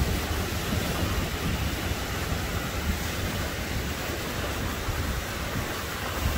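Small waves breaking and washing up on a sandy beach, a steady rush of surf, with a low wind rumble on the microphone.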